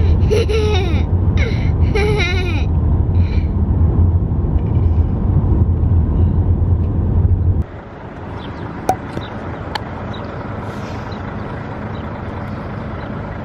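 Steady low rumble of road and engine noise inside a moving car's cabin, with a small child's voice in the first couple of seconds. About eight seconds in it cuts abruptly to a quieter steady hiss with a couple of sharp clicks.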